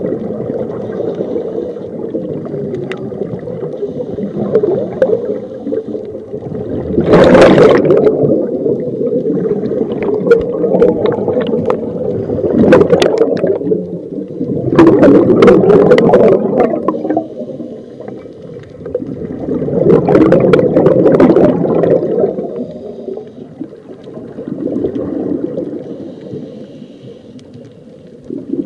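Scuba diver's regulator breathing heard underwater: exhaled bubbles rush out in four strong bursts a few seconds apart, over a steady low rumble of the water.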